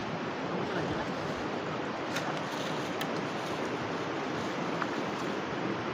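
Steady rushing of a flowing river, with a few faint clicks.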